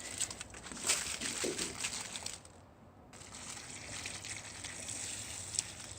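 Expired milk splashing and dribbling out of a smashed milk carton, with a few small knocks in the first couple of seconds, then a brief drop-out and a faint steady hiss.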